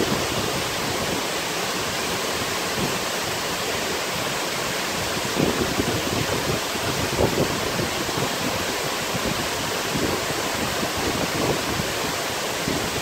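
Waterfall plunging into a pool: a steady rush of falling water, with a few brief swells in the middle.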